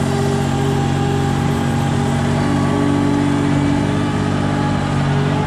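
Engine of a Caterpillar Navigator 5500 piggyback forklift running steadily as the machine is driven, its note changing slightly about two and a half seconds in.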